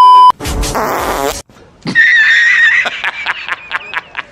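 Fart sound effect: a loud steady beep at the very start, then about a second of buzzy, rasping fart noise. After a short gap comes a wavering high squeaky whistle, then a run of short quick bursts, about four or five a second.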